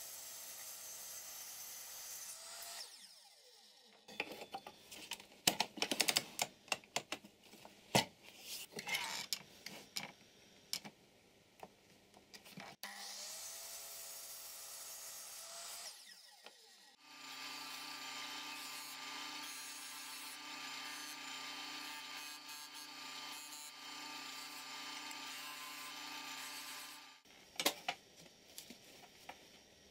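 Sliding compound miter saw spinning up and cutting a wooden block, then winding down, twice. Between the two cuts come many sharp knocks and clicks of wood being handled. Later a steady machine hum runs for about ten seconds, followed by a few knocks.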